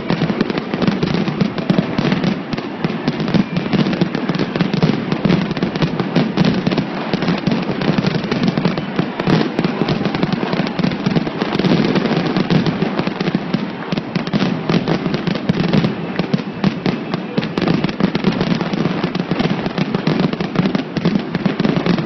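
Fireworks finale: a dense, unbroken barrage of rapid, overlapping bangs.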